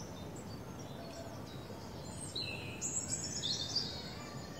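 Small birds chirping, with a louder run of quick high chirps about halfway through, over steady outdoor background noise.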